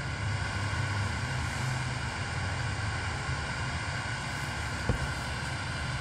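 Steady hiss and hum of FM radio static from a JR8 1010BT car stereo tuned to 87.5 FM, with weak reception on a short test antenna. A faint click comes about five seconds in.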